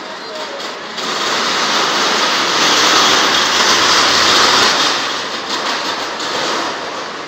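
Steel roller coaster car running along its track overhead, the noise of its wheels on the rails. The noise swells about a second in, is loudest as the car passes directly above, then fades.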